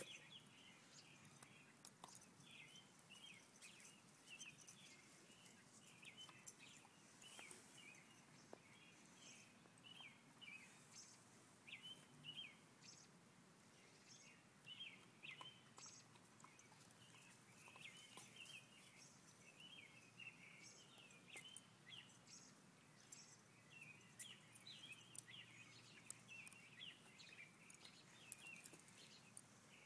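Faint background chirping of small birds, many short calls throughout, with scattered soft clicks from a husky gnawing on a stick.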